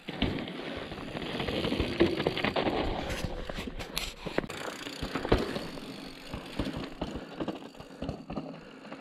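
Mountain bike rolling down rough, loose ground: a steady tyre-on-dirt rumble broken by many sharp rattles and knocks from the bike.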